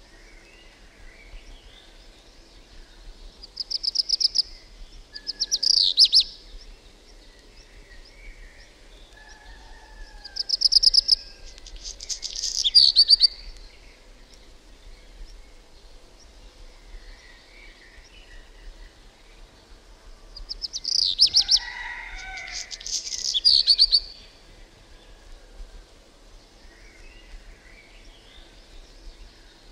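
Black redstart singing: three short song phrases about eight seconds apart, each a quick rattling run followed by a scratchy burst, with a fourth phrase starting at the very end and faint soft notes in between.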